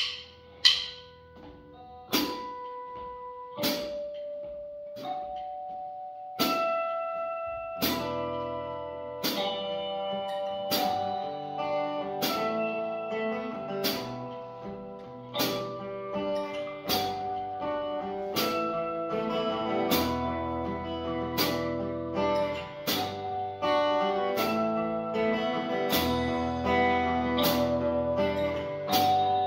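Guitars playing a slow instrumental over a steady click about every second and a half, which opens with a quick count-in of clicks. Single ringing notes come first; low bass notes and fuller chords join about eight seconds in.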